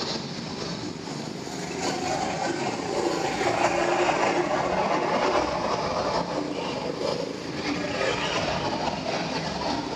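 Several go-kart engines running as the karts drive round a corner of an indoor track, a continuous drone with pitch that wavers as they pass. It swells about two seconds in and stays loud through the middle.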